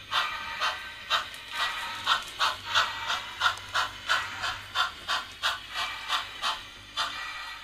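HO-scale Bachmann 4-4-0 steam locomotive's sound chuffing in an even beat, about two chuffs a second at first and quickening to about three a second. The chuffs stop near the end.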